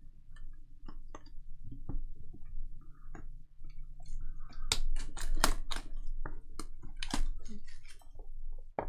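A trading-card box and its packaging being handled and opened by hand: a run of sharp crackles and clicks of plastic and cardboard, louder and denser in the middle, over a faint steady hum.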